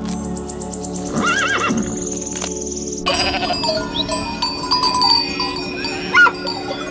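A horse neighs once about a second in. From about three seconds, a flock of sheep bleats, with a louder bleat near the end. Steady background music runs throughout.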